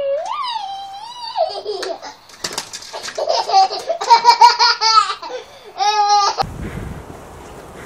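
A toddler squealing and laughing in high-pitched, repeated bursts. About six and a half seconds in it cuts off suddenly to wind rumbling on the microphone.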